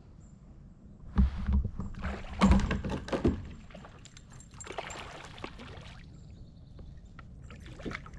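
Water splashing and a few knocks and thumps against a boat as a small largemouth bass is pulled from the water and landed. The loudest splashing and knocking comes from about one to three and a half seconds in, with a softer splash around five seconds.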